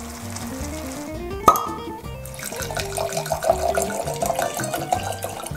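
Background music, with white wine poured from a bottle into a wine glass, splashing through the second half. A single sharp click comes about a second and a half in.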